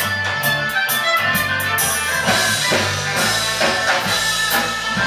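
Live band music: fiddle and saxophone over drums with cymbal hits, amplified in a club.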